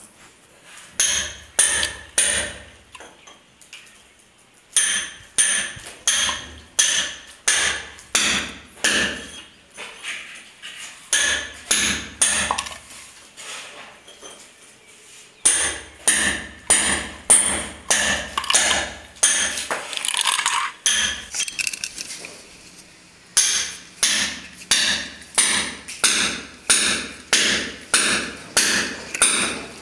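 Repeated hammer blows with a bright metallic ring, about two a second, in runs of several strikes broken by short pauses.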